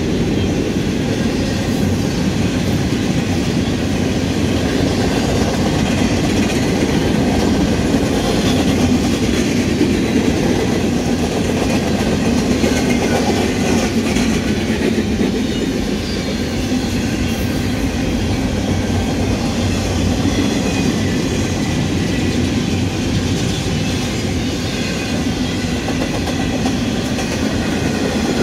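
Empty intermodal flatcars of a Union Pacific freight train rolling past: a steady rumble and clatter of steel wheels on the rails.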